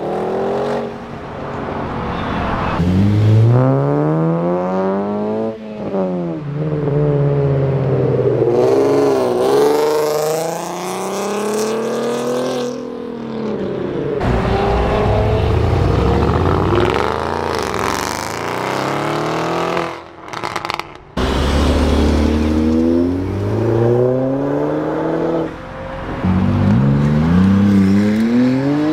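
Several performance cars accelerating hard away one after another, their engines revving up through the gears in repeated rising sweeps with breaks at the shifts. An Audi RS7's twin-turbo V8 pulls away at the start.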